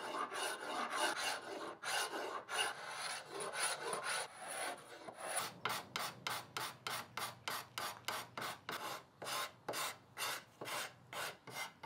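Hand scraper scraping old finish off a wooden table rail, raising curls of finish. Long, overlapping rasping strokes for about the first five seconds, then quick short strokes about three a second.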